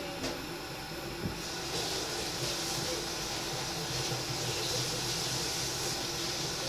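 Omelette sizzling in a frying pan on the stove: a steady hiss that comes up about a second and a half in and eases off near the end.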